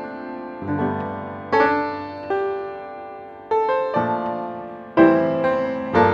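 Music: pitched notes and chords struck and left to ring and fade, a new chord every second or so.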